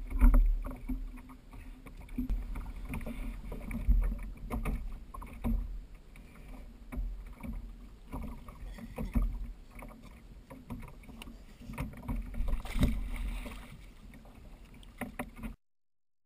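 Water sloshing around a fishing kayak with a low rumble of wind on the microphone and scattered knocks and bumps on board. The sound cuts off suddenly near the end.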